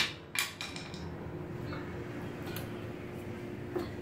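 Garage door opener's power plug being pushed into its ceiling outlet: a sharp click at the start and a lighter one about half a second in, then a few faint taps over a steady low hum.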